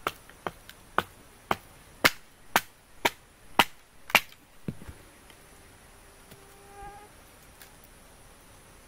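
Sharp strikes at a steady two a second, typical of chopping wood for a campfire, stopping about five seconds in. Near seven seconds an insect buzzes briefly.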